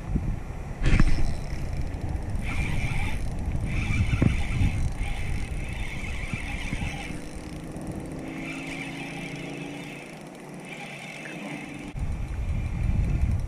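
A skiff's motor running as the boat comes up the creek, under a low rumble, with a spinning reel being cranked in short spells.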